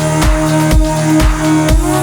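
Electronic dance music with a steady four-on-the-floor kick drum, about two beats a second, under sustained synth tones.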